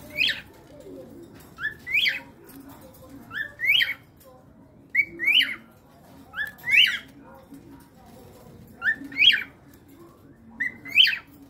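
Cockatiel calling seven times, each call a short rising whistle followed at once by a louder rising chirp, repeated about every one and a half to two seconds.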